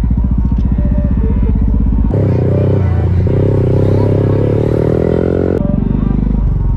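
Modified Yamaha R15 V3's single-cylinder engine running through an aftermarket exhaust with a rapid low pulsing. About two seconds in it cuts to a louder rev whose pitch slowly rises for about three and a half seconds, then returns to the pulsing.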